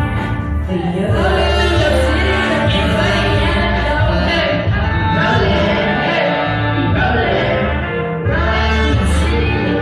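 Live band music with singing over a steady, heavy bass line.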